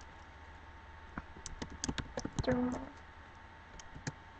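Laptop keyboard being typed on: a quick run of key clicks about a second in, with a brief voiced sound among them, then a few more clicks near the end.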